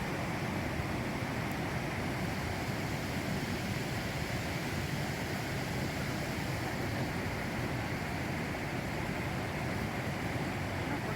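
Steady, even rushing noise with no separate knocks or voices, the kind made by wind or rain out in a field.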